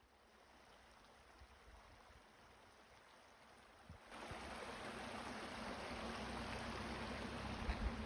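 Wind blowing across the microphone: a steady rushing hiss that gets louder about four seconds in, with low rumbling gusts buffeting near the end.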